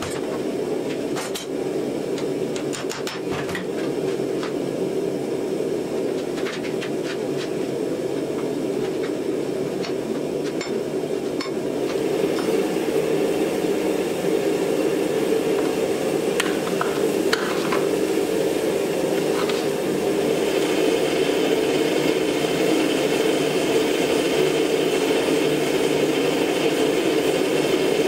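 Gas forge burner running with a steady rushing noise, louder from about halfway in, under scattered light metallic clinks and taps.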